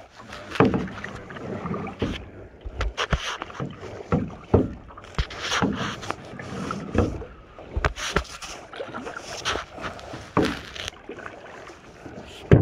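Paddling in a wooden canoe: irregular paddle splashes and sharp knocks of wood against the hull.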